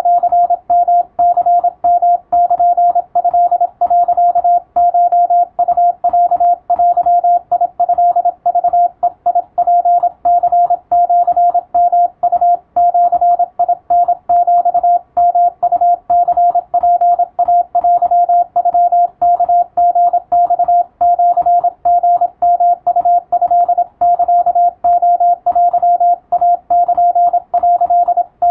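Japanese wabun Morse code: a single steady mid-pitched tone keyed on and off in quick dots and dashes, sent as a practice radiotelegram for receiving drills.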